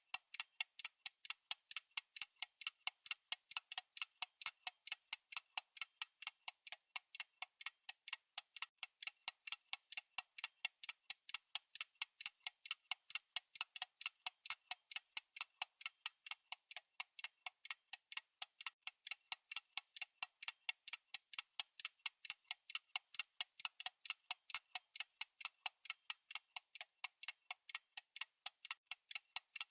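Clock-style ticking sound effect of a countdown timer: thin, high ticks at an even pace of a few a second, alternating louder and softer like a tick-tock.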